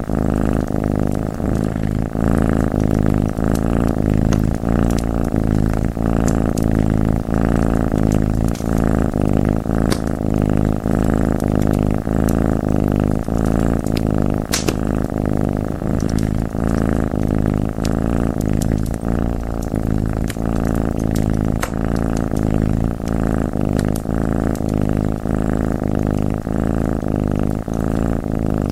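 Cat purring steadily in an even, pulsing rhythm, with sparse sharp crackles and pops from a wood fire.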